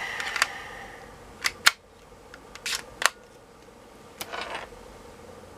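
Sharp plastic clicks and short rattles of an 18650 lithium-ion cell being handled and snapped into a charger's cell holder: a clatter at the start, about five separate clicks in the middle, and a short rattle near the end.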